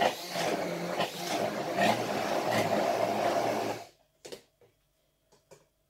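Hand-held immersion blender running in a tall beaker, puréeing orange segments and zest. It cuts off abruptly about four seconds in, followed by a couple of faint knocks.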